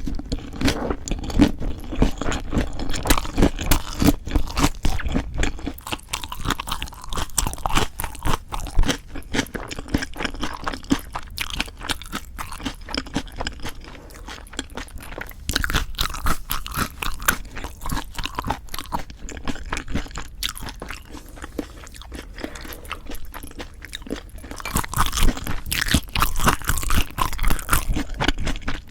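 Close-miked eating sounds: crunchy chewing of lettuce-wrapped bites of raw-fish bibimbap and boneless chicken feet. The chewing is louder near the start and again near the end, and softer in the middle.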